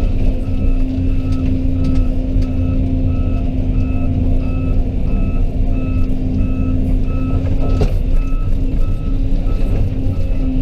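Heavy diesel excavator engine running steadily under load, with a travel alarm beeping quickly and evenly, about three beeps a second. One sharp click near the end.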